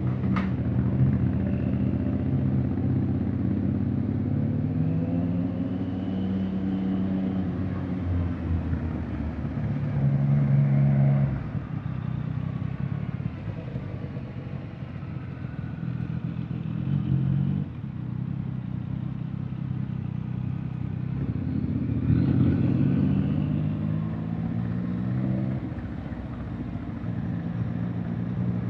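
Honda X-ADV 750's parallel-twin engine pulling the scooter along, its pitch climbing under throttle and falling back several times, with sudden drops in level about a third and about two thirds of the way through where the throttle closes.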